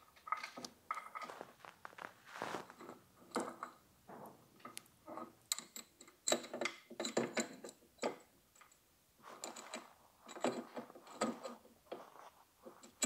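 Steel timing chain clinking and rattling against the cam sprockets as it is fitted by hand over the intake camshaft sprocket of a KTM 390 engine: an irregular run of light metallic clicks and rattles, some with a short high ring.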